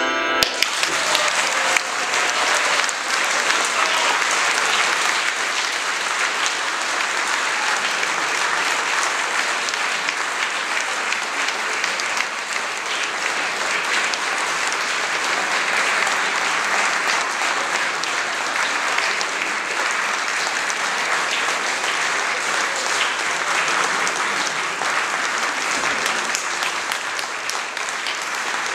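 Audience applauding steadily and at length, breaking in just as the last handbell chord stops.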